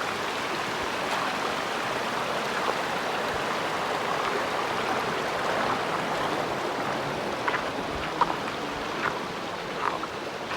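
Steady rush of running water, with a few faint ticks near the end.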